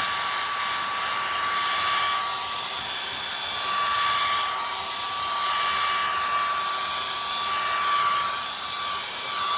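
Handheld electric blow dryer running steadily, a rush of air with a steady whine on top, its loudness swelling and easing a little; it is being used to dry wet acrylic paint on a canvas.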